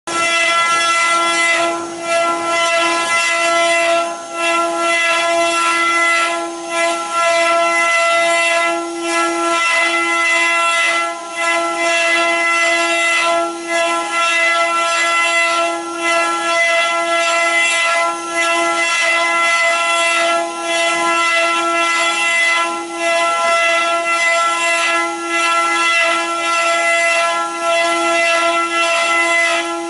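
Multi-spindle CNC wood carving machine running, its spindles whining at one steady pitch as the cutters carve the wooden blanks. The sound dips briefly about every two seconds.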